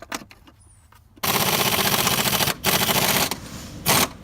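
A few light clicks, then a loud, rapid mechanical rattle in three bursts, the first over a second long, as a tool works a stuck screw out of a seatbelt mechanism.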